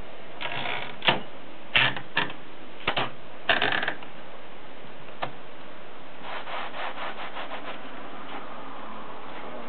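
Red Olivetti Valentine manual portable typewriter being worked: a handful of sharp mechanical clacks and short rasping slides in the first few seconds, a lone click, then a quick run of ratcheting ticks.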